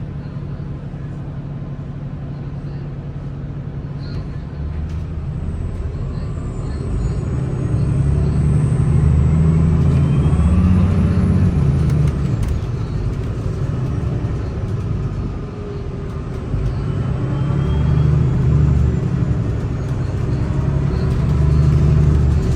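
Inside a 2022 Gillig hybrid bus under way: the Cummins B6.7 diesel rumbles steadily while a rising whine from the BAE hybrid drive builds as the bus pulls away, about a third of the way in. The sound eases about two thirds of the way through, then builds again near the end.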